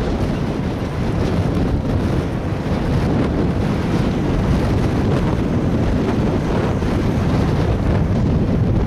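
Steady wind buffeting the microphone of a camera riding on a moving vehicle, with the vehicle's running noise underneath.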